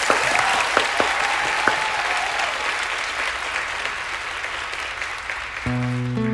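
Television studio audience applauding. Near the end the song's accompaniment comes in with a sustained chord as the applause fades.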